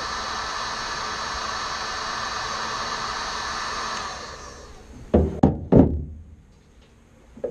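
A steady blowing hiss that dies away about four to five seconds in, followed by three loud knocks in quick succession.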